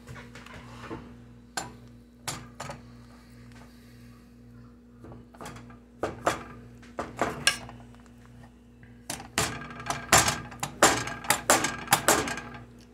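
Metal fork pressing cookie dough flat in a skillet, its tines clicking and tapping against the pan in irregular strokes, with quick clusters of taps about six seconds in and again near the end. A low steady hum runs underneath.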